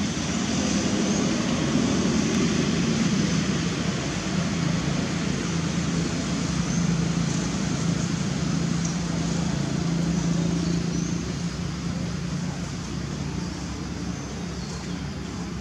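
Steady road-traffic noise with a low engine hum, strongest through the middle and easing a little near the end.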